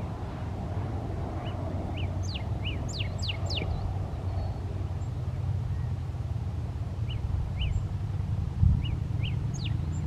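Male northern cardinal calling: a few short chirps, then a quick run of steep down-slurred whistles two to four seconds in, and near the end more chirps and a single down-slurred whistle. A steady low rumble runs underneath, with one low thump about eight and a half seconds in.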